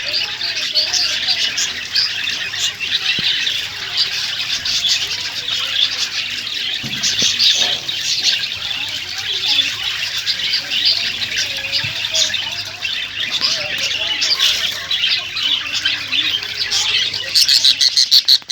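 Many birds calling at once in a dense, unbroken chatter of high chirps, with a quick run of rapid pulses near the end.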